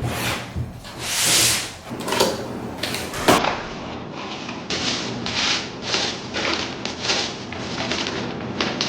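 Packaging and a tool case being handled while unboxing: a series of short rubbing and sliding scrapes, with a sharp knock a little over three seconds in.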